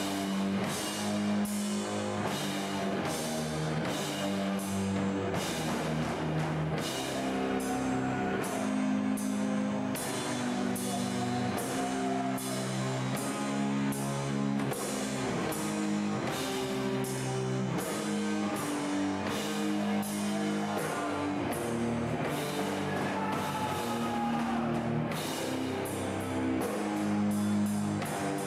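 Death metal band playing live: distorted electric guitars playing a slow riff of held low chords, with drum kit and regular cymbal crashes.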